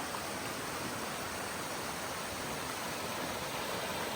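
Mountain creek water running steadily, an even rushing hiss with no separate splashes or other events.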